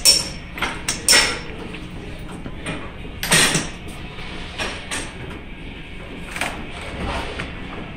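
Irregular clanks and knocks of metal tools and parts during work on a pickup truck. The sharpest come just after the start and about a second in, with a longer clatter about three and a half seconds in.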